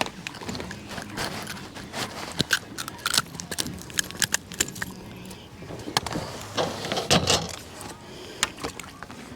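Irregular light clicks, taps and metallic rattles of fishing tackle being handled on a boat, with a few louder knocks about a third of the way in and again near the end.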